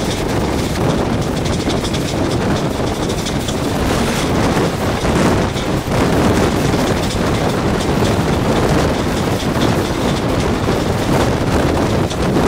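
Running noise of an Indian express train heard from an open coach door: wheels on the rails with faint clicks and wind on the microphone. Another express train passes close on the adjacent track, making it somewhat louder through the middle.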